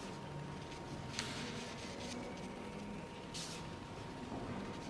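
Faint pencil strokes on fine-grain watercolour paper: two brief scratches, about a second in and past three seconds, over quiet room tone with a faint steady tone.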